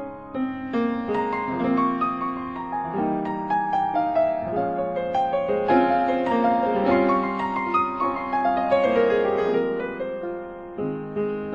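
Background piano music: a slow melody of single notes and chords.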